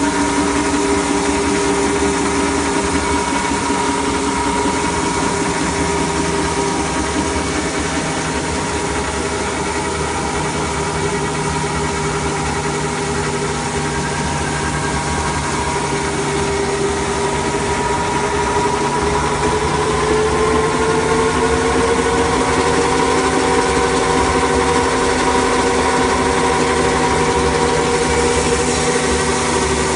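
Apollo SRF 450 slitter rewinder running, its drives and rollers giving a steady mechanical whine made of several held tones. Partway through, the whine rises in pitch and settles higher.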